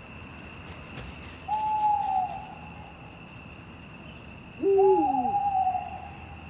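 Night-time animal calls: one long, slightly falling hoot-like tone, then near the end another long tone overlapped by a lower call that rises sharply and drops away, over a faint steady background.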